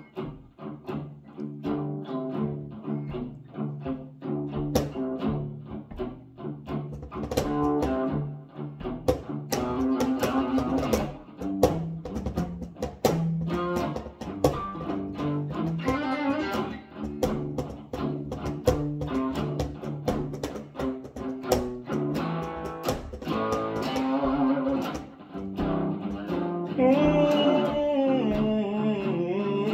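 Electric guitar playing a blues intro: picked notes and phrases over a repeating low bass line. Near the end a wavering, held melody line joins in.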